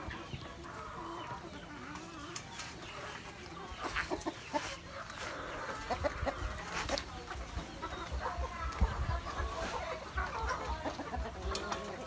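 Backyard chickens clucking, hens and roosters together. A few sharp knocks come near the middle, and repeated low thumps run through the second half.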